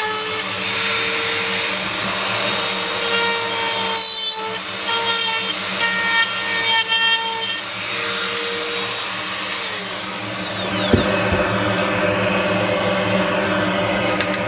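Dremel rotary tool with a small drill bit whining at high speed while drilling out burnt spots in a fiberglass circuit board, over the steady rush of a fume extractor fan running flat out. About ten seconds in, the Dremel is switched off and its whine falls away as it spins down, leaving the extractor fan running.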